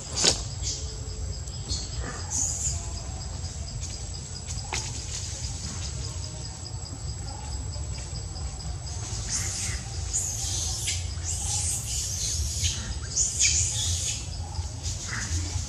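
Forest ambience: insects buzzing with a steady high drone. A cluster of short, high calls comes through in the second half.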